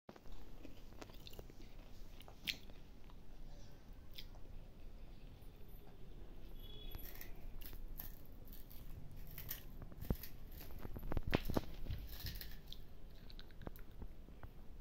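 A toddler biting into and chewing a crispy waffle-patterned snack, with scattered sharp crunches and a cluster of louder ones about two-thirds of the way through.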